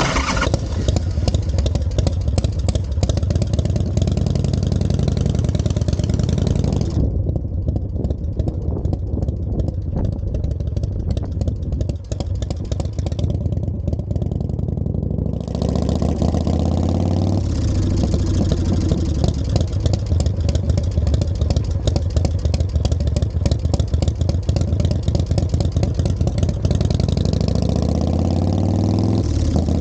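Custom fat-tyre motorcycle's engine running as it rides, heard from close to the rear wheel. It pulls up in pitch under throttle twice, at about the middle and again near the end, then drops back. A hiss sits over it and fades for several seconds early in the middle stretch.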